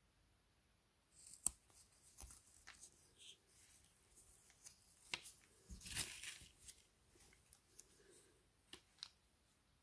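Small plastic Playmobil toy parts being handled and fitted together: faint scattered clicks and rubbing, with a sharper click about a second and a half in and a brief rustle of handling about six seconds in.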